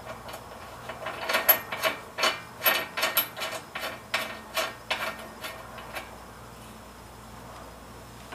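A ratchet clicking in short, irregular strokes as a nut is run back onto the front coilover's mount; the clicking stops about six seconds in.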